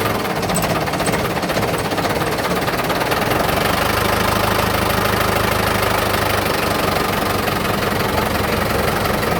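Diesel truck engine with an umplong open exhaust running steadily, a loud, rapid, even clatter of exhaust pulses.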